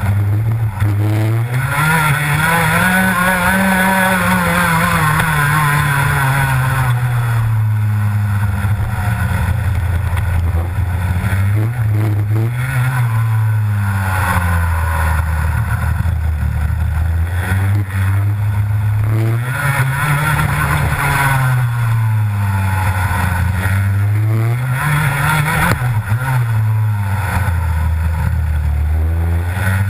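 Rotax 125 Max single-cylinder two-stroke kart engine at racing speed, heard from on board the kart: the revs climb and fall again and again as it accelerates out of corners and backs off into the next.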